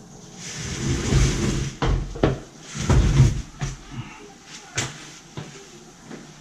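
A new General Electric dishwasher being shifted and walked across cardboard on a tile floor: scraping and rumbling as it slides and rocks, with several sharp knocks of its metal cabinet.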